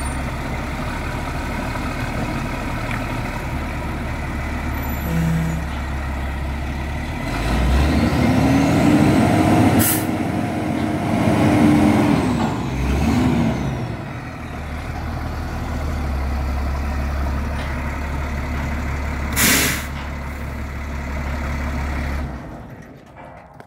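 Drill rig's engine running steadily, then revving up about seven seconds in and settling back down a few seconds later as the hydraulic controls are worked. Two short, sharp hisses of air come partway through and again later. The engine shuts off near the end.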